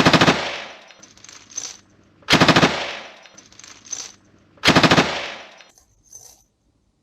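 M60 machine gun firing 7.62 mm NATO rounds in three short bursts of rapid automatic fire, about two and a half seconds apart. Each burst is a quick string of shots that dies away in echo.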